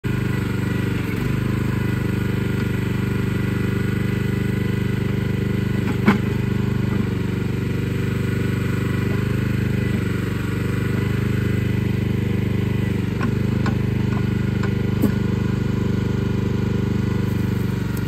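The gas engine of a Central Machinery towable backhoe running at a steady speed while the boom and bucket are worked, with a few sharp knocks, the loudest about six seconds in.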